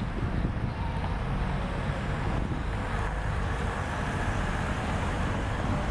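Steady city street ambience: road traffic running with a low rumble, with no single sound standing out.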